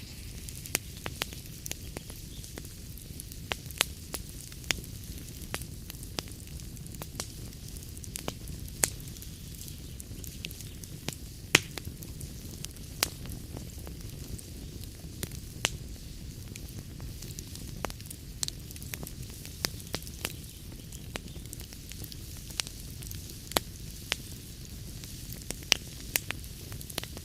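Log fire crackling in a fireplace: irregular sharp pops and snaps, one or two a second, over a steady low rumble and soft hiss of the flames.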